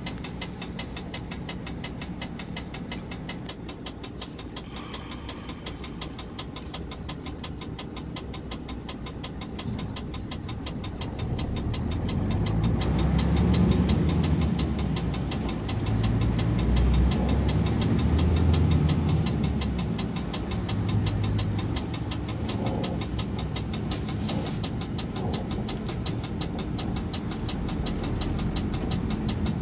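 Car engine and road noise heard from inside the cabin: the engine runs low and steady while the car waits in traffic, then the rumble grows louder about ten seconds in as the car pulls away and gets up to speed. A fast, even ticking runs through it.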